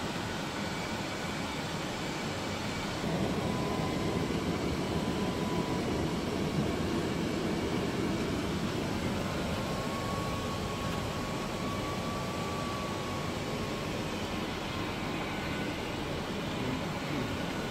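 Steady cockpit noise of an Airbus A330 on its approach descent: a rushing mix of airflow and engine and air-conditioning noise, stepping up a little louder about three seconds in.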